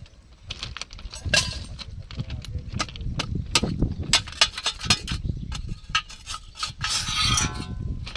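Irregular sharp clicks and knocks over a low rumble, as a metal rod works at the sand-sealed mould of a thermit rail weld.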